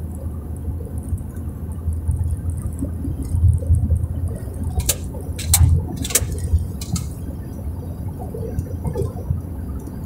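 Car driving at highway speed, heard from inside the cabin: a steady low rumble of engine and tyres on asphalt. A few sharp clicks come around the middle.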